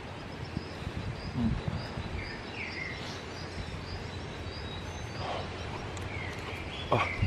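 A bird chirping repeatedly, a short high note about three times a second, over steady outdoor background noise, with a few soft low thumps and a louder one near the end.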